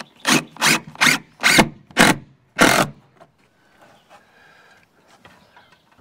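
Six short rasping strokes in quick succession, wood scraping against wood, over about the first three seconds, then only faint handling noise.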